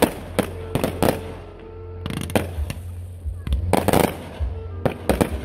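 Aerial fireworks shells bursting in a series of sharp bangs: a quick cluster in the first second, more around two and four seconds in, and a couple near the end.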